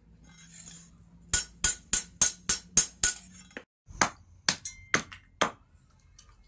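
Quick run of about seven sharp metal strikes with a clinking ring, about three a second: a hammer working the plough-disc axe blade on an anvil. After a short break, four or five slower hatchet chops into a wooden handle blank.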